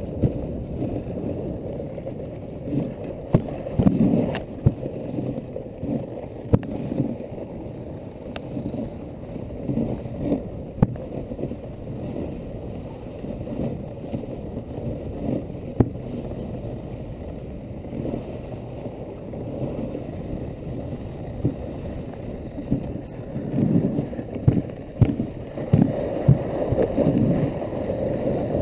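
Dog sled travelling along a snow trail: a steady rushing scrape of the runners on snow, with scattered knocks and rattles from the sled. The bumps come thicker and louder near the end.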